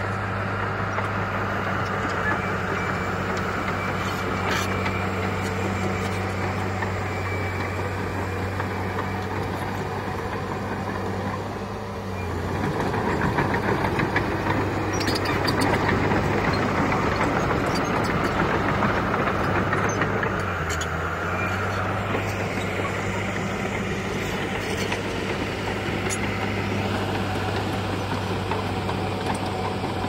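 Heavy diesel engine of earthmoving machinery running at a steady low hum, growing louder and rougher for several seconds in the middle as it comes under load, then settling back, with scattered clanks.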